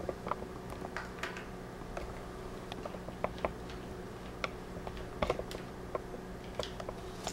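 Scattered light, irregular clicks and ticks as a small screw is turned into the plastic screen bezel of a Toshiba Satellite L755 laptop, over a steady low hum.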